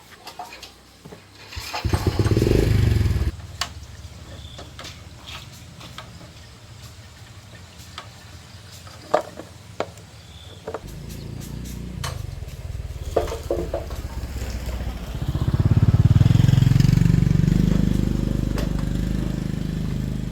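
110cc motorbike engine started as a test after new engine parts are fitted: a loud burst about two seconds in, then running at idle with scattered clicks and knocks, then revved up near the end and easing off slowly.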